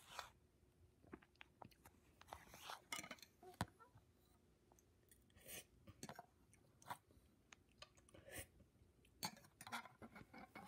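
A person chewing a mouthful of mashed strawberry close to the microphone: faint, irregular wet mouth clicks and smacks.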